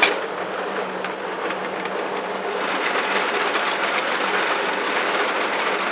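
Vintage soap-cutting machine (a 'coupeuse à retour d'équerre') at work on a block of Marseille soap: steady mechanical noise with a low hum and a few light clicks.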